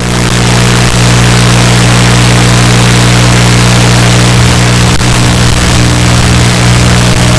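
A small motor running steadily at one speed, close to the microphone: a constant hum over a loud hiss.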